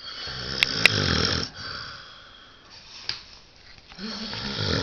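A man snoring in his sleep after a night of heavy drinking: two long, rattling snores about four seconds apart, the second still going at the end. Two sharp clicks sound during the first snore.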